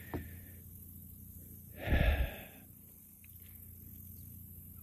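A man's single audible breath or sigh into the microphone about two seconds in, over a faint steady hum.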